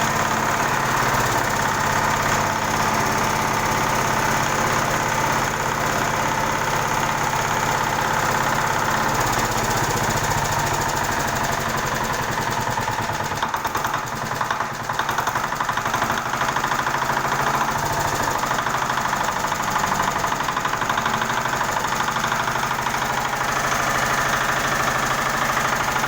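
Small engine running steadily with a fast knocking beat, powering a winch hoist that lifts goods between floors; its note dips and changes briefly about halfway through.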